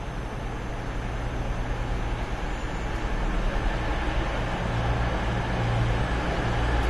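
Steady outdoor background noise at a railway station: a low rumble under a broad hiss that slowly grows louder, with no single vehicle or event standing out.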